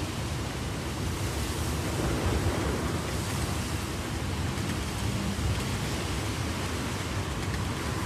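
Heavy rain falling steadily, an even hiss without distinct drops or breaks.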